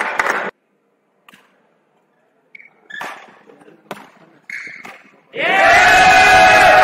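Sounds of a badminton rally on an indoor court: a few short, high shoe squeaks on the court floor and sharp racket strikes on the shuttlecock, with near quiet between them. It is bracketed by a loud sound that cuts off abruptly about half a second in and a loud sustained sound with a held pitch that cuts in suddenly near the end.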